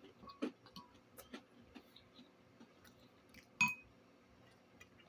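Chewing close to the microphone: soft, scattered mouth clicks, with one short ringing clink, like a utensil or glass being tapped, about three and a half seconds in.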